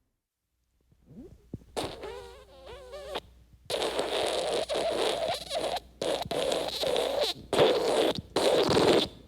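Farting sound effects. After a moment of silence comes a short squeaky fart with a wobbling pitch, then a long sputtering fart that breaks into several bursts with brief gaps between them.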